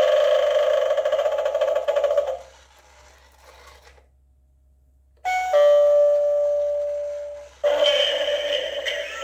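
Flying Tiger spooky novelty doorbell playing its sounds. A steady sound effect stops about two seconds in, and after a pause a single bell chime rings out about five seconds in and fades over two seconds. The first sound effect then starts again.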